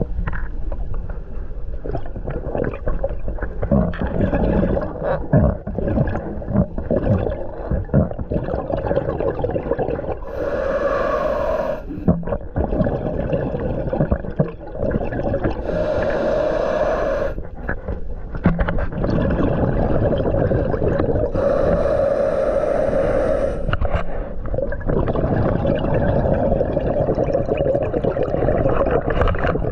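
Scuba regulator breathing underwater: the diver's inhales come as long hisses about every five or six seconds, each followed by bubbling exhaust, over a steady hum.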